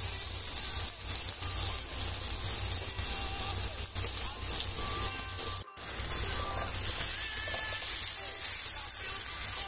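Diced zucchini, onion and tomato frying in oil in a pan: a steady sizzle that cuts out for a moment just past halfway.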